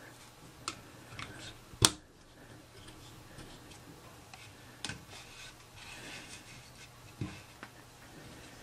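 Plastic toy pieces being handled and fitted together: scattered small clicks and taps, with one sharp snap about two seconds in.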